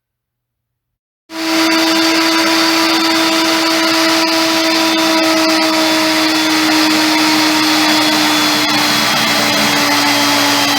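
Chicago Electric 15-amp 10-inch benchtop table saw started up and running free at full speed, a loud steady motor whine coming in about a second in.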